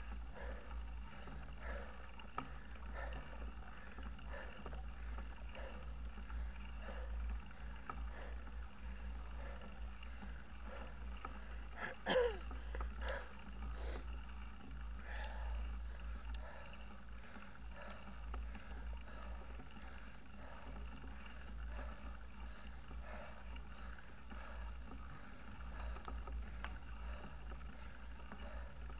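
Wind buffeting the microphone of a mountain biker's point-of-view camera as the bike rolls along a road, a steady low rumble with faint rhythmic rustling about every two-thirds of a second. A short squeak about twelve seconds in.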